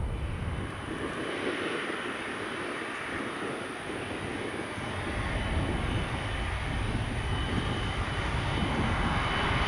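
Airliner engine noise: a steady rush that grows somewhat louder toward the end, with a faint high whine.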